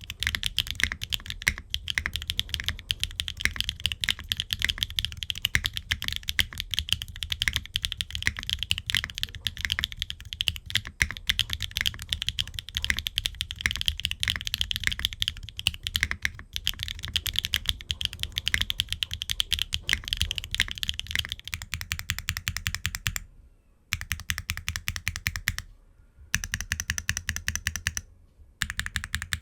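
Fast, continuous typing on a custom mechanical keyboard: HMX Aster linear switches in a Qwertykeys Neo65 Core Plus. The board is gasket-mounted with an aluminum plate and aluminum case and no foam, and has ABS double-shot Cherry-profile keycaps. In the last third the keystrokes come in quick, even runs, broken three times by short pauses.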